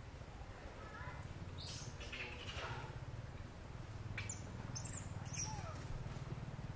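Light rustling and crackling in dry leaf litter, with a few sharp little ticks, over a steady low hum.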